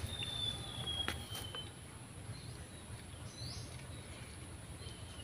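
Outdoor wetland ambience: insects keep up a steady high-pitched drone while birds call, one long slowly falling whistle in the first second and a half and a short chirp past the middle. Two faint clicks a little after a second in, over a low rumble.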